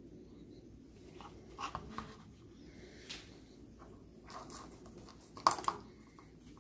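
Gloved hands handling the plastic parts of a Renault Megane II steering-column switch and airbag clock spring: scattered light plastic clicks and rustling, the sharpest click about five and a half seconds in.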